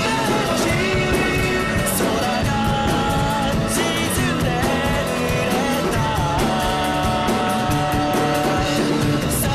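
Rock song with a singing voice over guitar and drums.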